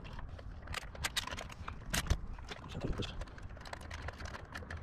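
Scattered light clicks and taps as hands fit plastic and metal parts, such as the fuel filter and its connectors, back onto an outboard engine's powerhead, with a faint low hum underneath.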